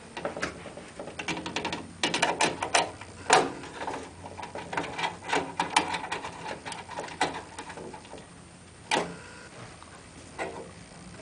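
Hand screwdriver clicking and scraping against a screw and metal as a motherboard is screwed down in a computer case: a quick flurry of clicks about two seconds in, scattered clicks after, and one sharp click near the end.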